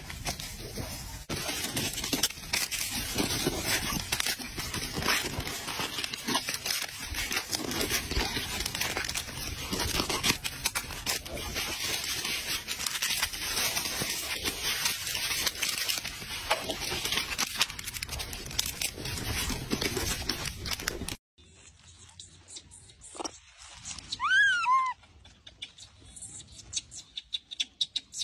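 Dense crackling and rustling with many small clicks for about twenty seconds, cut off suddenly. Then, over quieter background, a young rhesus macaque gives a few short squealing calls that rise and fall in pitch, near the end.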